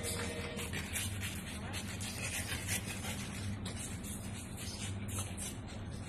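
A cat and a small dog play-wrestling on a tile floor: fur rubbing and claws scratching and scraping on the tiles in quick, irregular scratchy strokes, over a steady low hum.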